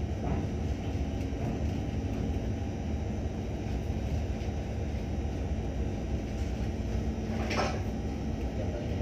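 Steady low drone of ship's machinery, with a steady hum. A brief rushing noise about three-quarters of the way through.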